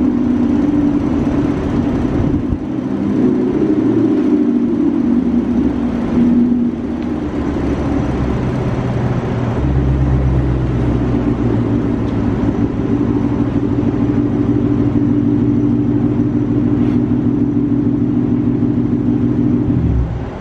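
2018 Ford Mustang GT's 5.0-litre V8 running at idle, a loud steady engine drone, with a deeper low rumble coming in about halfway through.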